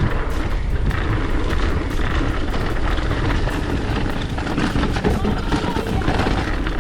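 Heavy storm rain with strong wind buffeting the microphone: a steady loud rush with a deep rumble and a patter of drops.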